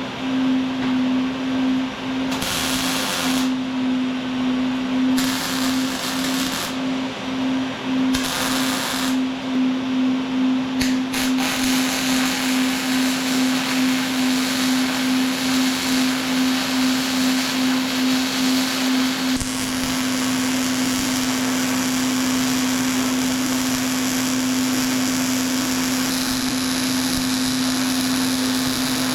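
Harbor Freight Omnipro 220 MIG welder laying beads on steel square tubing: the arc crackles and buzzes in short runs with brief pauses for the first ten seconds or so, then runs as one continuous bead. A steady buzz pulses quickly until about two-thirds of the way through, then holds steady.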